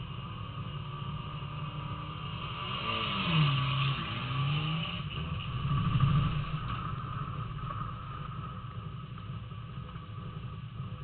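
Rally car engines running at a stage start, heard from inside the cabin: the engine note drops and then climbs again a few seconds in, followed by a louder burst of revs about six seconds in as the car pulls forward.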